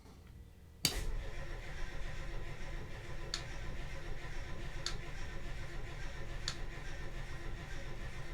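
A boat's inboard diesel engine running steadily with a low rumble. It comes in suddenly about a second in, with faint ticks about every second and a half.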